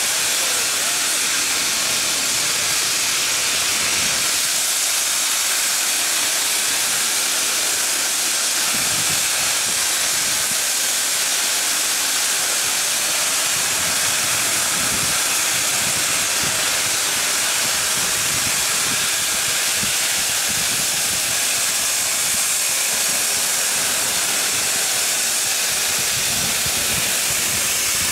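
Steam hissing steadily and loudly from the green streamlined C38-class Pacific steam locomotive 3801, standing at the platform and venting clouds of steam before departure.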